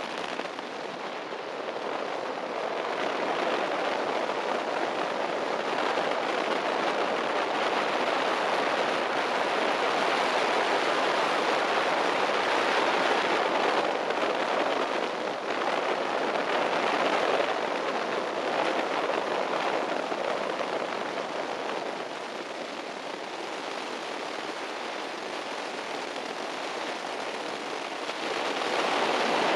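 Off-road race vehicle driving over desert dirt, heard as a steady crackling rush of wind and tyre noise with no clear engine note.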